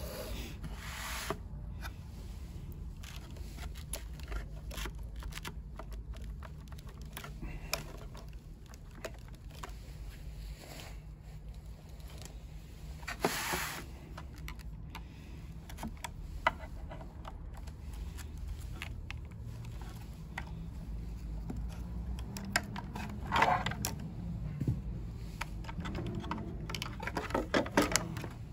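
Handling noises from a mobility scooter's battery pack: scattered clicks, scrapes and knocks of plastic casing, connectors and sealed lead-acid batteries being worked on by hand, over a steady low rumble. The louder knocks come near the middle and in a cluster near the end as a battery is lifted out.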